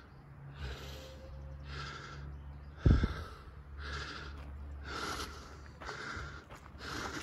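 A person walking a leaf-strewn dirt hillside path, breathing hard, with noisy breaths and steps about once a second over a low steady rumble on the microphone. There is a heavy thump about three seconds in.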